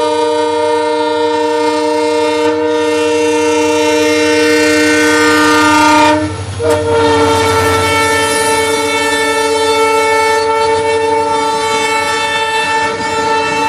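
Multi-note train horn sounding one long blast, a brief break about six seconds in, then a second long blast on a slightly different chord, over a low rumble.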